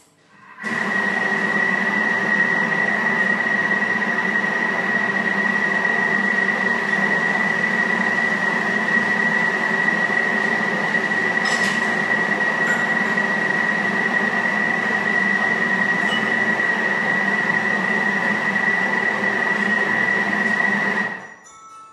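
Thermomix food processor's motor running steadily at speed 4 in reverse, mixing grated potato with egg and flour. It gives a steady whine with a strong high tone, starting about half a second in and stopping about 20 seconds later, just before the end.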